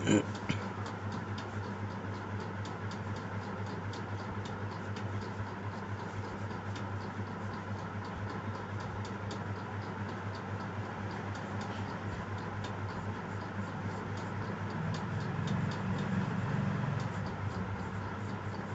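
Pencil sketching on paper, over a steady low electrical hum and a faint, regular ticking. A somewhat louder rubbing sound comes about fifteen to seventeen seconds in.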